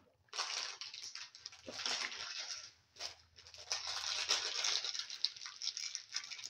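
Thin layer of hot ghee crackling and sizzling in a steel pan. It starts suddenly about a third of a second in, with a brief lull about three seconds in.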